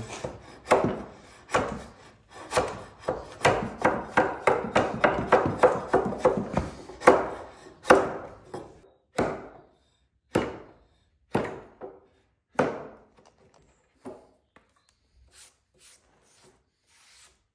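Chisel being struck to chop away waste from a green oak tenon, trimming it to depth. A quick run of sharp wooden strikes, about three or four a second, slows after about eight seconds to single blows roughly a second apart, then a few faint taps near the end.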